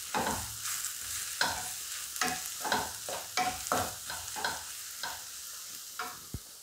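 Wooden spatula stirring and scraping onions and spice powders around a nonstick wok in quick repeated strokes, over the sizzle of the masala frying in oil. The strokes die away near the end.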